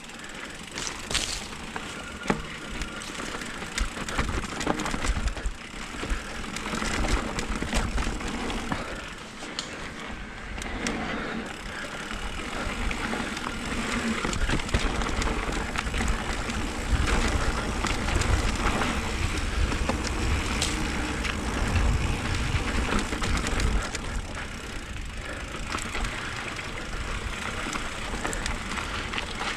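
Mountain bike rolling over a dirt and rocky trail: tyres crunching on loose ground with scattered knocks and cracks, and wind rumbling on the camera microphone, growing stronger about halfway through.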